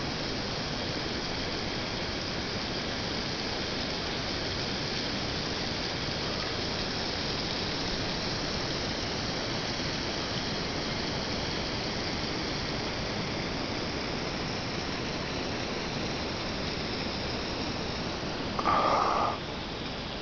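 Steady, even hiss-like noise with no distinct events, broken by a brief louder burst of noise about a second and a half before the end.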